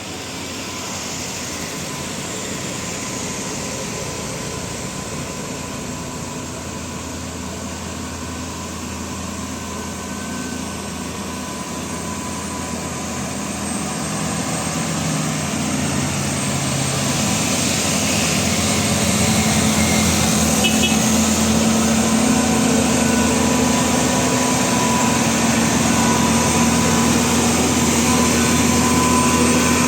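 Heavy diesel engines of buses or trucks labouring up a steep climb, growing louder as they approach. The engine note rises about two-thirds of the way through.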